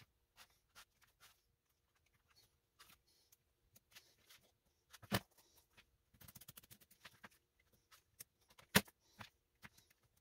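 A small knife cutting through a sheet of new shoe-sole material along a traced outline: scattered small clicks and scrapes, a quick run of tiny clicks in the second half, and two louder sharp clicks about five and nine seconds in.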